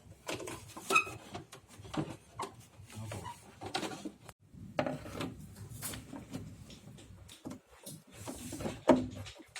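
Irregular clicks and knocks of a tube TV's plastic cabinet and parts being handled during reassembly, with one sharper knock near the end.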